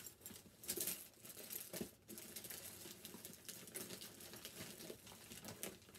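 Plastic packaging of medical supplies crinkling and rustling as they are handled and sorted, with small knocks, in irregular bursts that are louder in the first couple of seconds.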